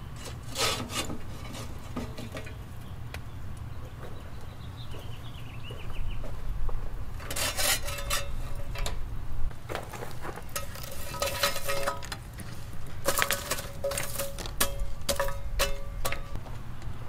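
Metal cookware being scraped and rubbed in several bursts a few seconds apart, with a faint ringing tone.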